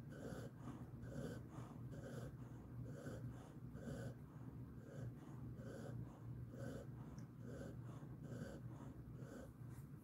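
Jindo-mix dog breathing softly in its sleep, a calm, even rhythm of breaths a little under two a second, over a steady low hum.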